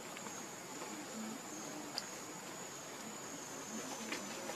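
Insects droning steadily in one thin, high tone, over faint outdoor background noise, with a small tick about two seconds in.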